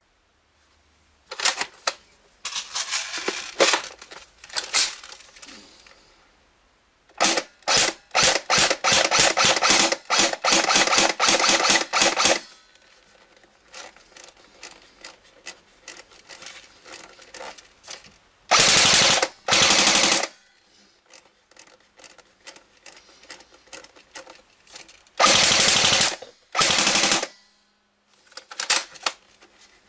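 Jing Gong Steyr AUG airsoft electric gun (AEG), run on a 7.4 V LiPo battery, firing: strings of single shots, then three short full-auto bursts of gearbox clatter, then a few more single shots near the end. Faint mechanical clicks sit between the strings.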